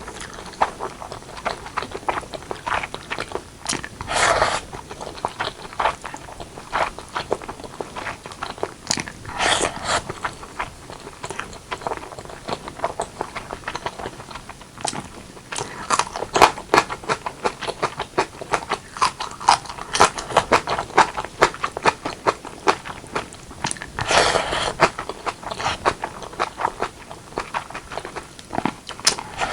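Close-miked eating sounds of braised pork leg with white rice being chewed and bitten: a dense run of small clicks, with a few louder bites along the way.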